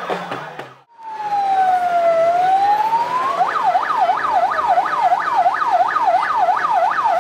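Electronic siren: a slow wail that falls and then rises, switching a little over three seconds in to a fast yelp of about three sweeps a second.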